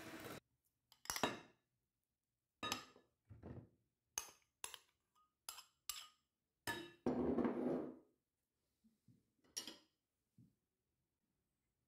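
An electric hand mixer running cuts off just after the start. Then a metal spoon clinks and scrapes against a glass bowl and a small glass dish as mascarpone is scooped in: a run of sharp clinks, with a longer scrape about seven seconds in.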